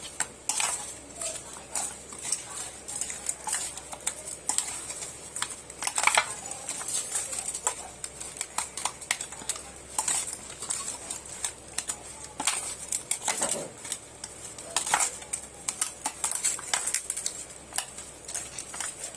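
A spoon clinking and scraping against a dish in irregular taps, several a second, as raw fish pieces are mixed with salt and turmeric.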